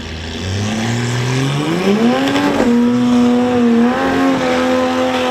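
Supercharged six-cylinder Holden Commodore engine revving hard: the revs sag low, climb steeply about two seconds in, then hold high and steady.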